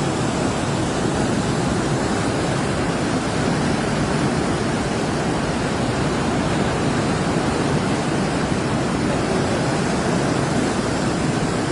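Steady rushing of fast-moving floodwater, a dense even roar with no change in level.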